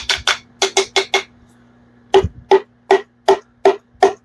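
Butt end of a hammer handle tapping a piston crown, driving the piston and its rings through a ring compressor into a small-block Chevy cylinder bore. The sharp taps each ring briefly: a quick run of them first, a short pause, then steady taps about two and a half a second.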